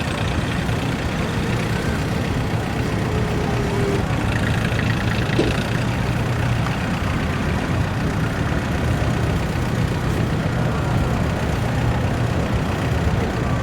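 Tractor engines running steadily, a continuous low drone with no sudden changes, with faint voices in the background.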